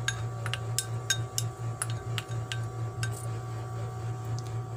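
Wooden spoon tapping and scraping against glass bowls as chopped red onion is scraped into a mixing bowl. Light, irregular clicks come about three a second at first and thin out in the second half, over a steady low hum.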